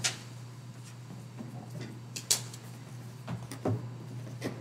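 A few light knocks and clicks as archival boxes are handled and set down, with a sharper click about two seconds in, over a steady low hum.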